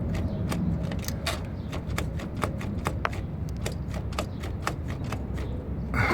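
Rapid, irregular clicking and knocking, about five a second, from the driveshaft shifting in a worn-out carrier (center support) bearing on a 2004 Mercedes ML500. The clatter comes from the bearing's excessive play. A louder scraping clatter comes right at the end.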